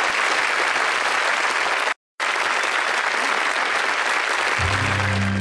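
Studio audience applauding, cut off by a brief dropout about two seconds in. Near the end, music with low sustained notes begins.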